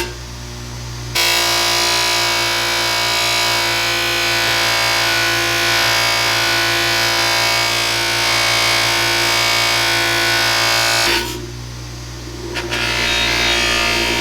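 Small electric rotary tool running steadily at speed while polishing or sanding tarnished bronze, giving a high whine. It starts abruptly about a second in and cuts off near the end.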